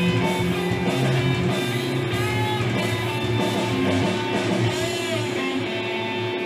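Slot machine game music with guitar, playing steadily as the game runs.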